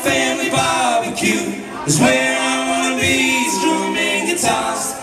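Live music: a man singing into a microphone, held notes that break every second or so, with other voices joining in and little instrumental backing heard.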